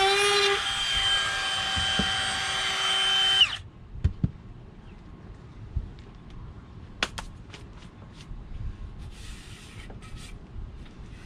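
Electric wood router running at a steady high whine, rounding over the edge of an Apitong hardwood board, then switched off about three and a half seconds in and winding down. After that come a few light clicks and knocks.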